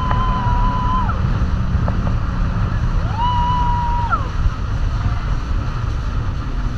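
Heavy wind buffeting on the microphone and rushing spray as a banana boat is towed at speed across the sea, with riders letting out two long, held, high yells, one at the start and another about three seconds in.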